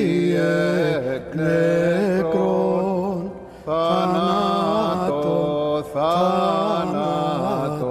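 A man chanting in Byzantine style, solo, holding long notes with wavering ornamented turns. He breaks off briefly about a second in, again around three and a half seconds, and near six seconds.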